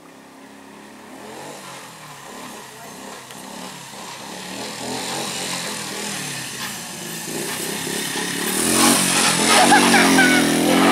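A small motorcycle's engine approaching, growing steadily louder and loudest near the end as it passes.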